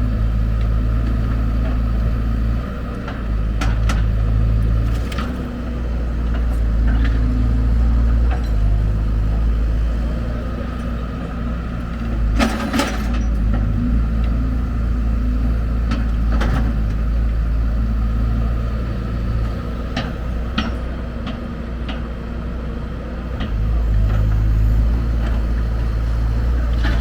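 Heavy diesel machinery running steadily, its engine note rising and falling in long swells as it works under load. Scattered sharp knocks and clatters sound through it, the loudest about halfway through.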